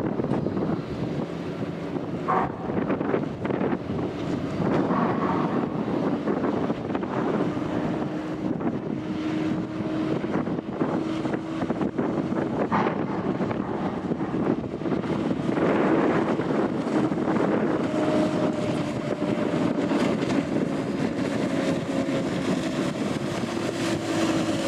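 Customs patrol boat running at speed: a steady engine drone under rushing water, with wind buffeting the microphone.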